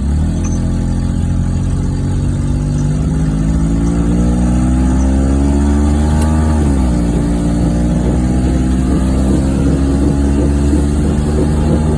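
1994 Geo Metro engine pulling away. Its pitch rises steadily for several seconds, drops sharply about seven seconds in, and then holds steady.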